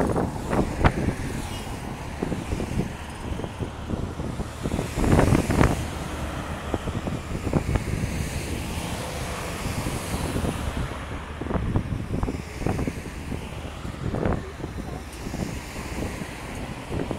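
Wind buffeting the microphone over the steady noise of road traffic, with a louder swell about five seconds in and scattered short knocks.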